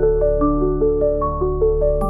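Calm new-age relaxation music: a flowing pattern of soft pitched notes, about five a second, over a low steady drone.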